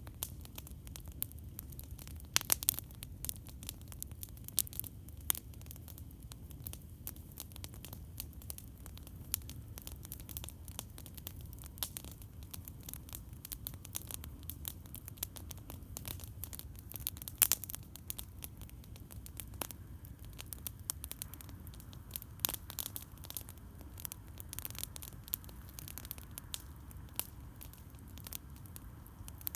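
Campfire crackling: irregular sharp pops and snaps, with a few louder ones about two seconds in and again past the middle, over a steady low rumble.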